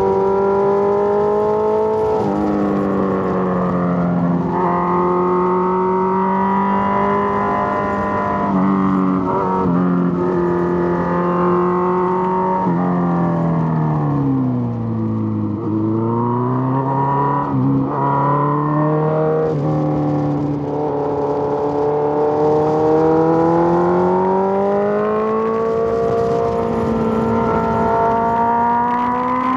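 Suzuki GSX-R1000 inline-four motorcycle engine under way, pulling steadily at moderate revs. About halfway the revs fall away as the bike slows, then climb gradually through the second half as it accelerates again.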